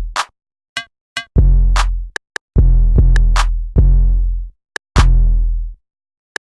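Electronic music beat from a drum machine: deep, drawn-out bass-drum hits about every second and a bit, with short sharp snare and hi-hat hits between them.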